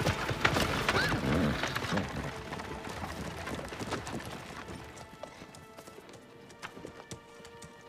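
Horses' hooves clip-clopping as horse-drawn chariots roll forward over dry, dusty ground, with a short whinny about a second in. The hoofbeats fade over the last few seconds under steady music.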